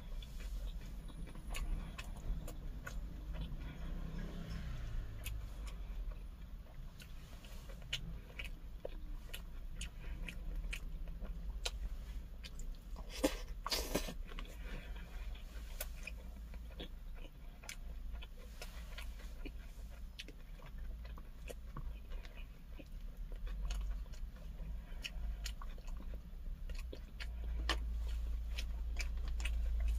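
Close-up eating sounds: a person chewing pork bulgogi wrapped in cabbage leaves, with many small scattered mouth clicks. There is one brief louder noise about thirteen seconds in.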